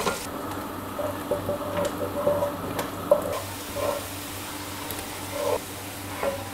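Sliced onions sizzling steadily in hot oil in an aluminium pressure cooker, being fried toward golden brown, with a wooden spatula stirring and scraping the pot now and then.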